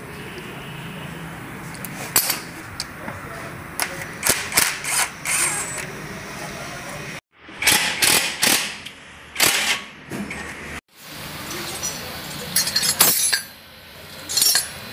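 Socket ratchet clicking as the brake caliper bolts are worked loose, mixed with irregular metal clinks and knocks of tools and parts.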